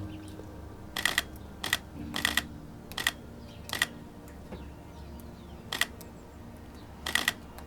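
Canon EOS R camera's shutter firing in continuous-shooting mode: about seven quick bursts of sharp clicks, one to three frames each, at irregular intervals.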